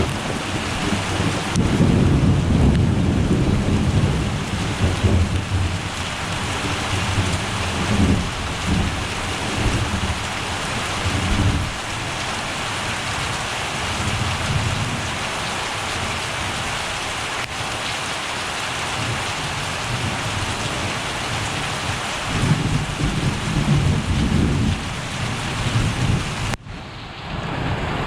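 Steady heavy rain with thunder rumbling low several times, strongest a couple of seconds in and again near the end. The sound drops briefly and loses its high end shortly before the end.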